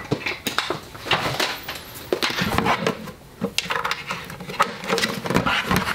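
Irregular clicks and knocks of hands handling a plastic sand drawing machine and plugging in its AC power adapter. The machine is switched off, so no motor runs.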